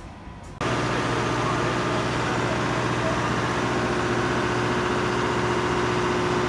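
Caterpillar diesel machinery running in a ship's engine room: a loud, steady hum with a constant low drone. It cuts in abruptly about half a second in.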